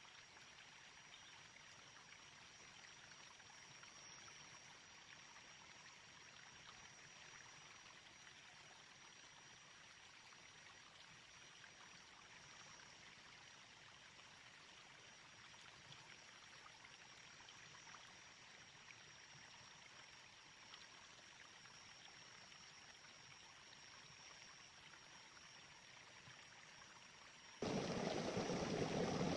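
Faint, steady rush of a small river flowing over stones. Near the end the sound jumps abruptly to a much louder, deeper rush.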